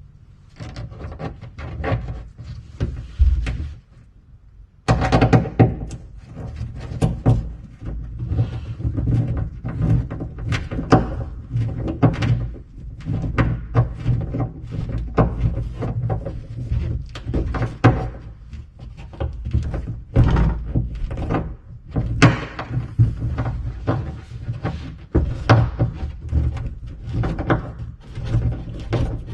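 Irregular knocks, clunks and clicks of a screwdriver and small fittings being worked by hand against a wooden kayak's hull and seat hardware, as a screw is driven in, with a short pause about four seconds in. A low steady hum runs underneath.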